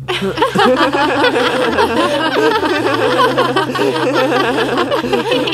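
Several voices laughing and snickering at once, dense and continuous, over steady low background tones.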